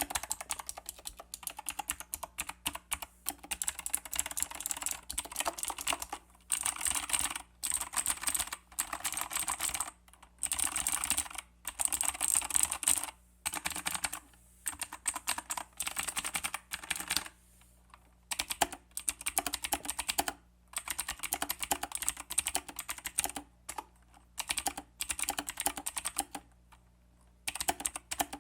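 Royal Kludge G87 mechanical keyboard with clicky RK Blue switches being typed on in fast bursts, a rapid patter of sharp key clicks broken by short pauses.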